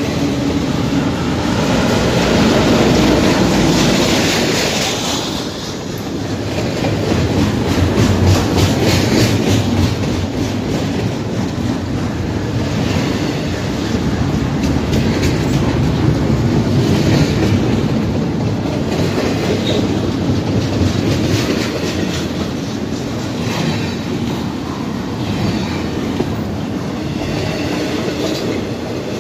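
Double-stack intermodal freight train rolling past: a steady rumble of steel wheels on rail, with runs of rapid clacking as the wheelsets cross rail joints.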